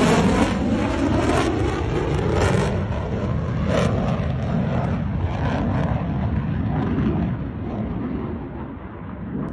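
Jet aircraft engine roar after a flyover, a loud rushing noise with some crackle that slowly fades away and dies down near the end.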